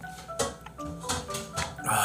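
A person sipping and gulping a drink through a straw from a tumbler: a few short wet sounds, the loudest near the end. Gentle marimba-like background music plays under it.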